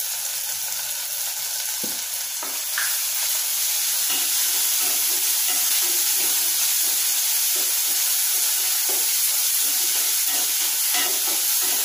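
Onion, tomato and green chilli paste sizzling in hot oil in a nonstick kadhai, while a spatula stirs and scrapes the pan in quick repeated strokes. The sizzle gets louder about three seconds in.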